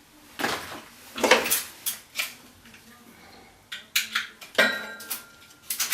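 Clicks and clatter of small hard objects being handled and knocked against a surface, a handful of sharp knocks with pauses between them.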